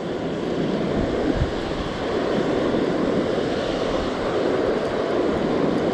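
Ocean surf washing onto the beach in a steady hiss, with wind buffeting the microphone in short low rumbles about a second in.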